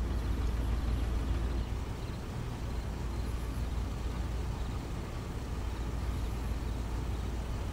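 Steady low rumble and faint hiss of quiet background ambience, with no distinct event.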